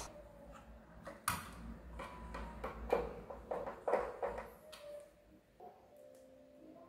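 Hand screwdriver driving a screw through a plastic soap-dispenser backplate into a wall plug: a run of small, irregular clicks and scrapes for about four seconds, then it goes quiet.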